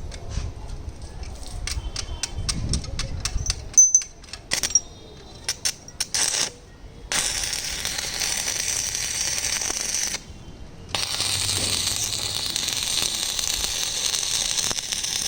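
Electric arc welding on an iron jaali: a run of sharp sputtering clicks as the arc strikes, then a steady frying hiss and crackle from the weld, which stops briefly about ten seconds in and then carries on.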